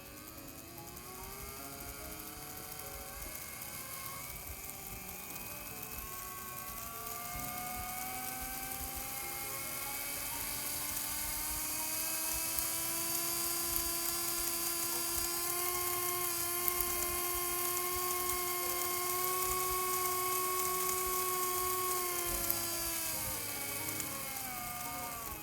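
A small electric model-railway motor, the TOMIX M-9, running with a high whine: it speeds up over roughly the first twelve seconds, holds a steady pitch, then slows and falls in pitch near the end.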